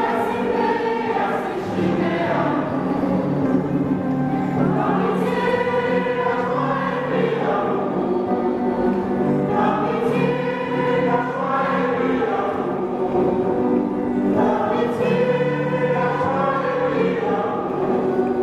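A mixed choir of women's and men's voices singing a song together.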